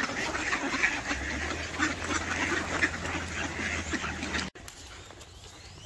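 A flock of ducks quacking, many calls overlapping, until the sound cuts off abruptly about four and a half seconds in and leaves only faint background.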